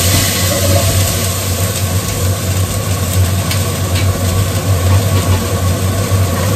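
Steady low hum of a kitchen extractor fan under an even hiss of food sizzling in hot oil, with small crackles.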